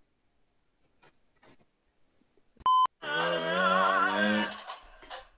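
A short, loud electronic beep about two and a half seconds in, then a voice singing for about a second and a half with a wavering pitch.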